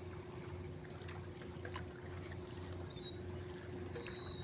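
Boat motor running with a steady low hum and a constant droning tone. Faint high chirps come in during the second half.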